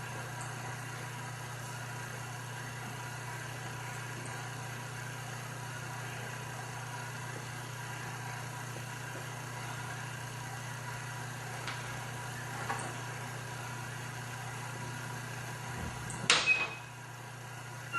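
Steady low electrical-sounding hum with a few faint ticks, broken by a sudden loud sharp knock or bang about sixteen seconds in.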